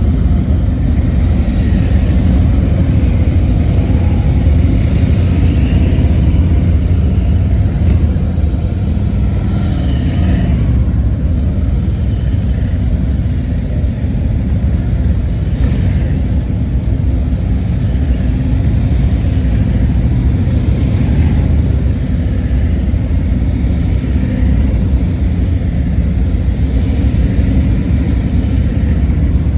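Dozens of police motorcycles riding slowly past in a long column, their engines making a steady, deep, continuous rumble with now and then a brief rev.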